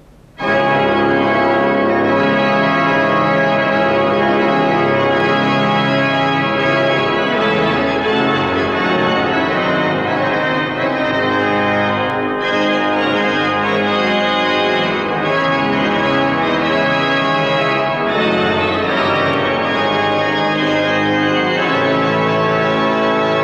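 Pipe organ played at full volume with a bright, full registration: a loud chord enters suddenly about half a second in, followed by sustained, changing chords.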